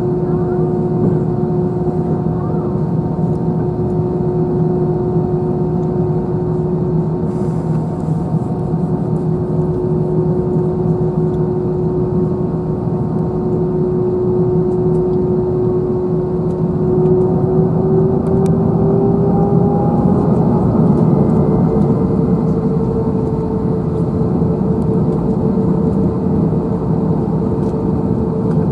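Jet engines of an Airbus A321 (CFM56) heard from inside the cabin, running with a steady hum and a constant rush of air. About two-thirds of the way through, the engine tone rises in pitch and gets slightly louder as the engines spool up, then holds at the higher pitch.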